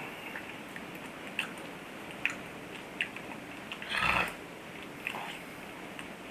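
A sleeping person's mouth noises: a few short clicks and smacks of the lips and tongue, with a longer, louder smack about four seconds in.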